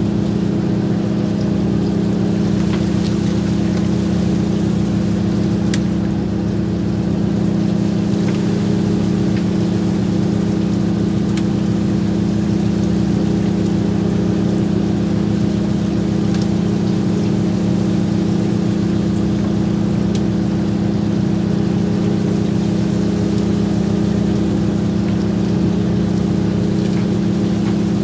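Fishing boat's engine running steadily: a constant, loud droning hum that does not change, with a few faint clicks and knocks from work on deck.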